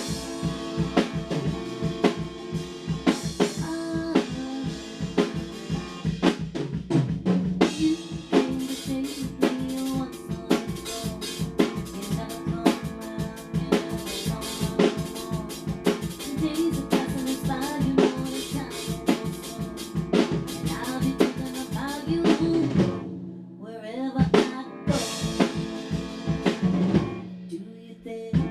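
Rough mix of a rock song with no vocals: a drum kit plays a steady beat of kick, snare and rimshots under held guitar chords. The band drops out briefly about three-quarters of the way through, then comes back in.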